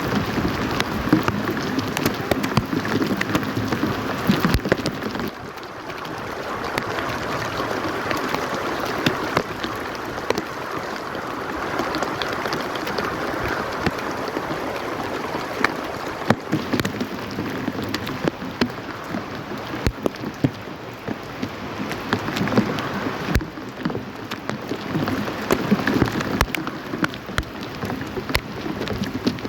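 Steady rain falling, with a dense patter of separate drops hitting a surface. It eases about five seconds in and grows heavier again near the end.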